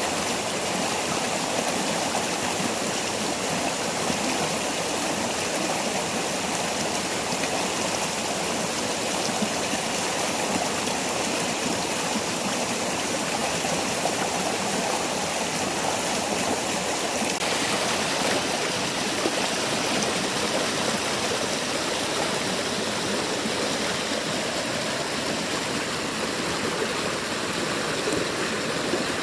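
Waterfall's falling water rushing steadily. It turns somewhat brighter and hissier about two-thirds of the way through.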